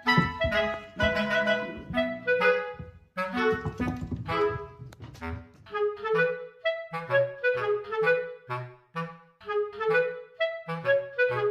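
Light background music: a clarinet-like woodwind melody over a bass line, played in short, bouncy notes.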